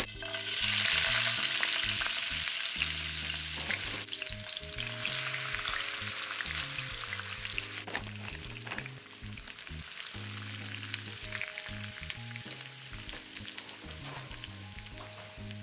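Shredded hash brown potatoes sizzling in hot vegetable oil in a skillet. The sizzle starts loud as they go into the oil and slowly eases off.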